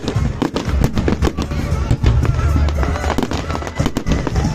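A fireworks display: many shells bursting and crackling in quick succession, over music playing.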